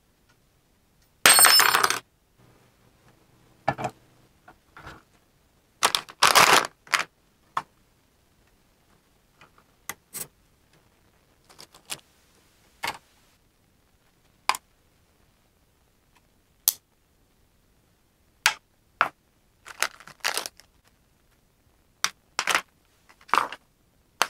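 Scattered clinks, clicks and knocks of metal parts and hand tools being handled while a desktop CNC kit is put together, at irregular intervals, with one louder, longer clatter about a second in.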